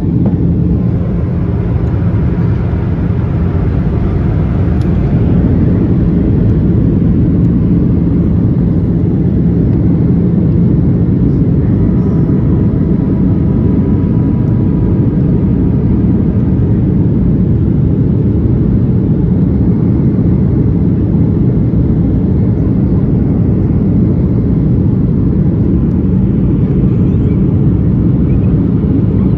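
Steady cabin roar of a Boeing 737-800 in flight, its CFM56-7B engines and the airflow heard from a window seat over the wing, with a low steady hum under it. The flaps are extended for the approach to landing.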